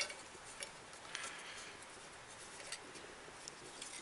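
Faint scattered clicks and rustles from the brush dust boot being pressed back onto the rear of an alternator by hand, with the signal wire rubbing against it.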